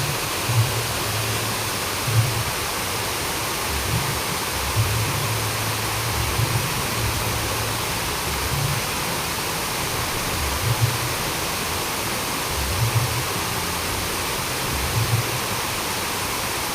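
Steady rushing of flowing water, an even hiss, with short low rumbles every second or two.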